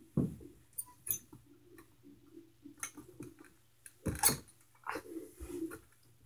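Scattered clicks, knocks and rattles of hands working the wire door of a plastic pet carrier, with louder knocks about a quarter second in and about four seconds in.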